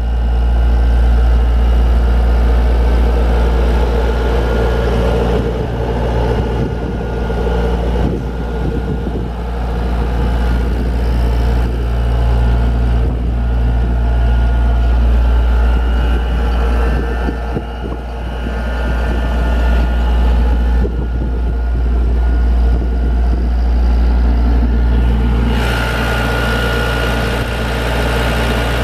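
Atlas Copco XAS136DD portable air compressor's diesel engine running steadily with a deep drone. Near the end a higher whine and a hiss join in.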